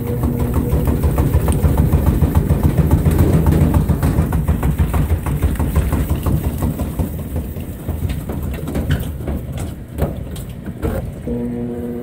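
Consul 16 kg top-load washing machine spinning an unbalanced load: a loud, rough rattling and knocking of the tub, strongest in the first few seconds and easing off toward the end.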